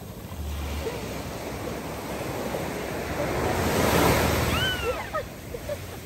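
Small waves breaking and washing up the shallows of a sandy beach, the rush of foam swelling to a peak about four seconds in and then easing back.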